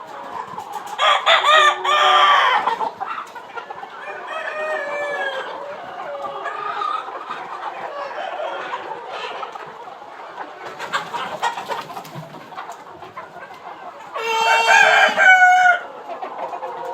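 Aseel roosters crowing: one long crow about a second in and another near the end, over steady clucking and calling from a flock of Aseel chickens.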